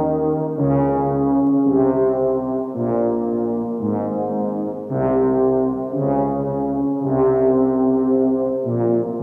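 Slow music of held, low brass-toned notes, a new note starting about every second.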